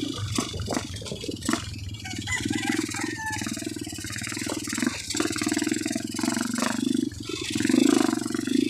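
Dirt bike engine running at low speed as a steady drone, with rattles and knocks from the bike jolting over a rough dirt trail; the engine grows louder near the end.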